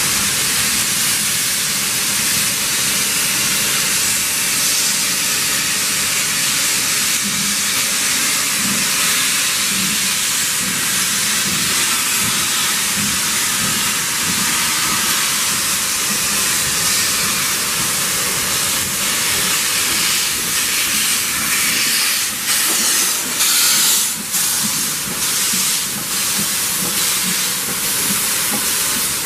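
Steam locomotive, BR Stanier 8F No. 48624, hissing steadily and loudly while wreathed in its own steam. Near the end it gives a few sharp, irregular louder pulses as it moves past close by.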